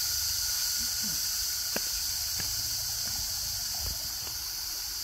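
Forest insect chorus, crickets by the local word, a dense, steady, very shrill high-pitched drone, with a faint steady tone lower down and a few faint clicks.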